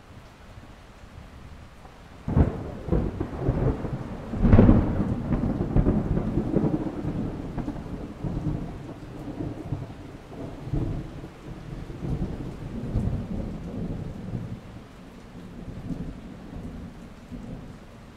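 Thunderstorm with steady rain. Thunder cracks sharply about two seconds in and louder again a couple of seconds later, then rumbles on in swelling and fading waves.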